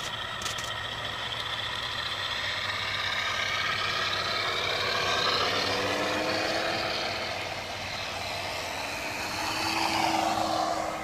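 Radio-control model T-28 Trojan airplanes' motors and propellers running at takeoff power as they roll down the runway and climb away. Several pitched tones rise and swell, loudest about halfway through and again near the end as a plane passes close.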